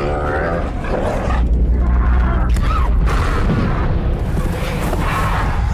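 Movie soundtrack of a dinosaur stampede fleeing a volcanic eruption: a deep booming rumble, strongest in the first half, with wavering dinosaur calls and film music underneath.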